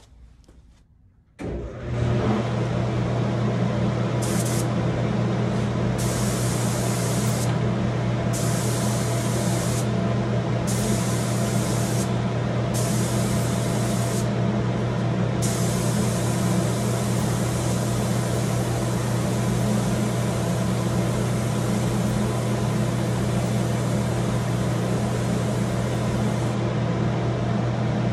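A spray booth's ventilation starts up about two seconds in and runs on as a steady low hum and rush. Over it, a gravity-feed spray gun hisses as it sprays pre-cat lacquer: five short passes of a second or so each, then one long pass of about ten seconds that stops shortly before the end.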